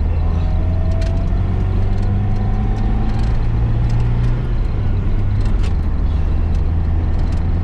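Car engine running with a steady low drone, with a few light clicks over it.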